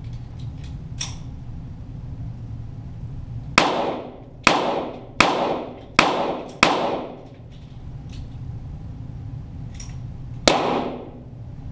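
.22 LR Walther GSP target pistol firing: five shots in quick succession about two-thirds of a second apart, then a single shot near the end, each one echoing and dying away.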